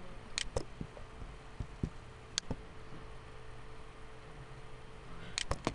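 Scattered sharp clicks of a computer mouse, with a quick run of three near the end, over a faint steady hum.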